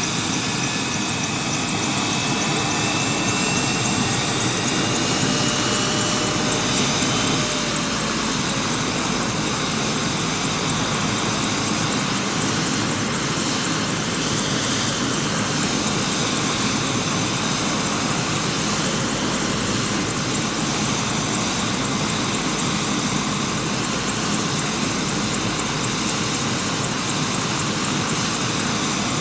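Helicopter running steadily: a dense rush of rotor and engine noise with a high turbine whine that rises slightly over the first several seconds, then holds level.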